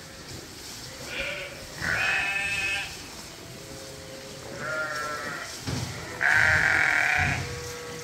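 Sheep bleating: about four calls, one after another, the loudest about six seconds in and lasting about a second.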